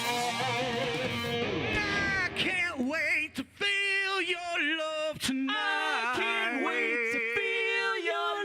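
Live rock band music, led by an electric guitar playing bent, wavering notes, with a brief break about three and a half seconds in.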